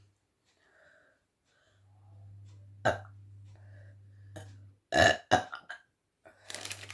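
A woman burping, brought on by gulping carbonated cola: one short burp about three seconds in, then a louder burp in two quick parts about five seconds in.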